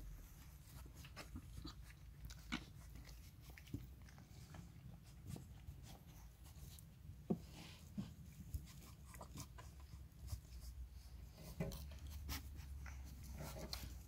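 Puppies suckling at their mother's teats: soft, irregular wet sucking and smacking clicks, a few of them louder.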